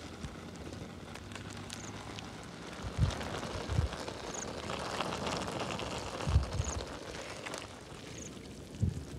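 Wood fire crackling under a steaming pan of noodles: a steady hiss with scattered small crackles that swells about halfway through. A few low thumps come and go.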